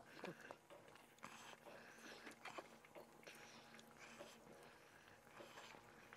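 Faint clinks and scrapes of a stainless-steel ladle in a metal pot of spicy fish stew, with short splashy sounds as the soup is ladled into a bowl, over a faint steady hum.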